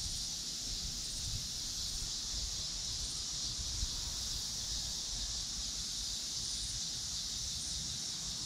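Steady, high-pitched insect chorus, crickets or similar, with an uneven low rumble of wind on the microphone.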